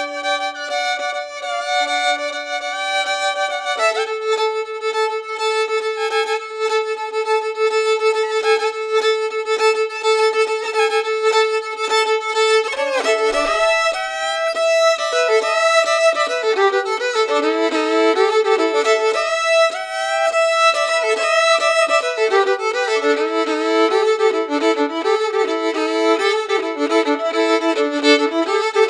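Violin music: long sustained notes, then busier, faster-moving lines with several notes sounding together from about halfway through.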